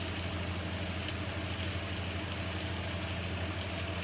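Slices of beef sausage frying in a pan: a steady sizzle over a constant low mechanical hum.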